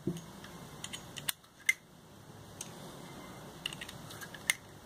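Spent .38 cartridge casings being pushed one by one into the chambers of an open revolver cylinder: a series of sharp metallic clicks at irregular intervals.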